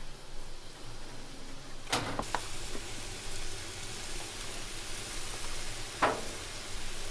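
Kitchen work noise: a steady hiss, with a few sharp knocks, a cluster about two seconds in and another near six seconds.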